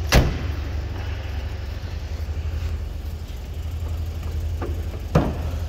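A Ford Escort XR3i's door shuts with a loud clunk just after the start, and near the end the car's bonnet is opened with a second metallic clunk, with a fainter knock just before it. A steady low rumble runs underneath throughout.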